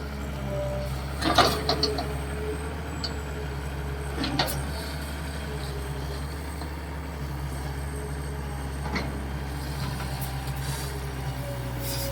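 Diesel engine of a Hitachi EX220-3 long-boom excavator running steadily while it digs, with a few sharp knocks, one about a second and a half in and another about four seconds in.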